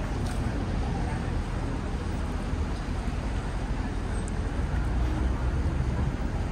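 Steady city street ambience: a constant low rumble of road traffic from passing cars.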